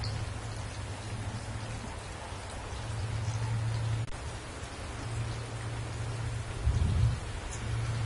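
Heavy rain falling on trees and foliage, a steady even hiss. Underneath it runs a low rumble that swells and fades, loudest about seven seconds in.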